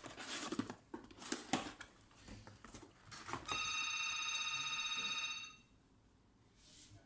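Clicks and rustling from hands handling the laptop and its packaging, then, about three and a half seconds in, a steady electronic ringing tone that lasts about two seconds and stops suddenly.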